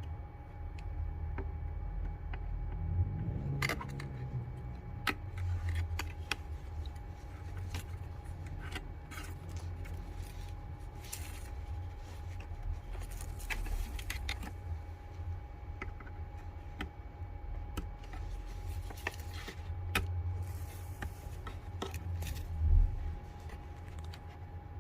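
Handling noise: scattered light clicks and taps over a low rumble, with a faint steady tone throughout. One louder knock comes a little before the end.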